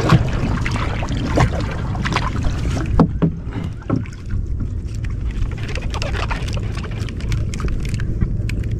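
A small boat on the water: a few splashes and knocks in the first four seconds, over a steady low rumble that runs on alone after that.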